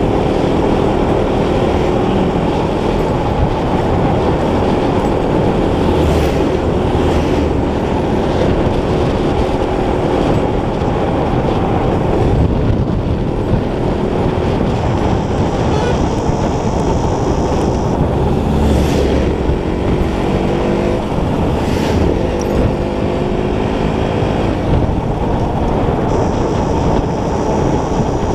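Motorcycle engine running at road speed under heavy wind noise on the bike-mounted microphone. The engine note rises and falls with the throttle, most plainly near the start and again past the middle.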